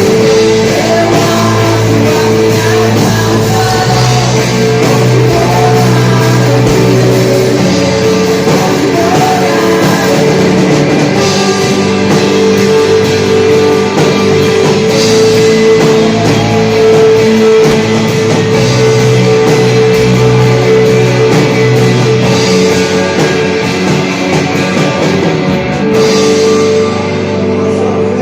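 Live church worship band playing a loud rock-style passage, with drum kit and guitar over held chords.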